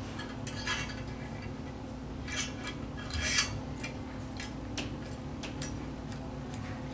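Light metal clicks and clinks of a pop-up drain's lift rod and strap being handled as the small clamping nut is worked onto the lift rod, with short rattling clusters about two and a half and three seconds in.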